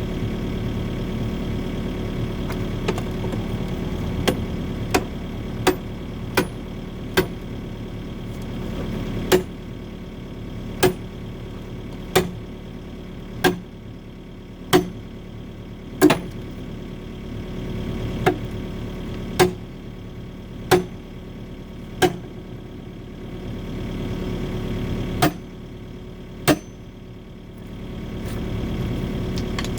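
Excavator diesel engine running while the bucket strikes concrete again and again like a sledgehammer, about seventeen sharp knocks: a quick run of five, then a slower series about one every second and a half, and two more near the end.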